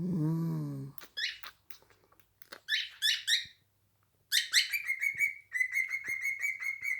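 Pet bird calling: a few sharp high chirps, then a fast run of repeated whistled notes on one pitch, about five a second, starting a little past halfway. A brief low voice-like sound comes before the chirps at the very start.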